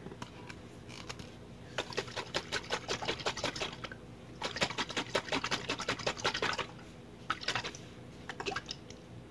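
Glass jar of homemade vinaigrette (olive oil, cider vinegar, Dijon mustard) shaken hard with its screw lid on to mix it: rapid sloshing in two long bouts, then two short shakes near the end.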